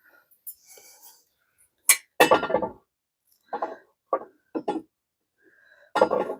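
Scattered clinks and knocks of tools and metal parts being handled: a sharp click about two seconds in, then a short clatter and a run of separate knocks.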